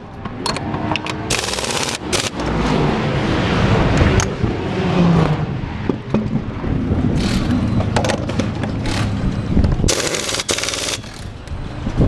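Pneumatic wheel gun (impact wrench) rattling in short bursts on a race car's wheel nut during a pit-stop tire change, the loudest burst about ten seconds in.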